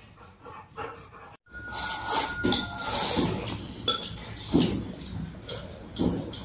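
Dishes and bowls clinking at the table, with a few scattered sharp clinks and knocks.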